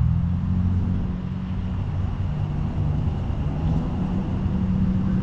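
A motor vehicle engine running steadily nearby, a low, even hum.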